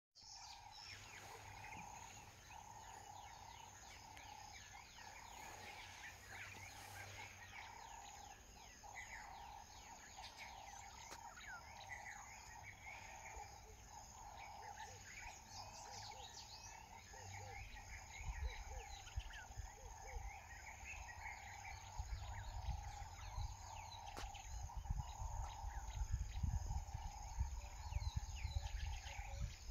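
Savanna ambience: many small birds chirping and twittering over a steady insect drone. Wind buffets the microphone with a low rumble that grows stronger in the second half.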